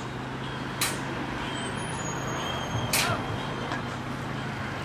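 Steady hum of city traffic, with two sharp knocks about two seconds apart, the second the louder, as a climber moves on steel scaffolding frames.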